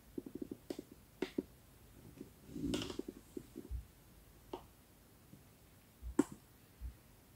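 Two British shorthair cats sparring on a fabric sofa: scattered faint clicks, taps and soft thumps as they paw and shift, with a short busier scuffle about three seconds in and a sharper click about six seconds in.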